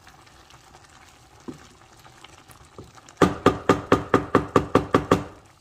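Wooden spoon knocking against the side of a metal cooking pot: about ten quick, evenly spaced knocks with a ringing note, starting about three seconds in and lasting about two seconds.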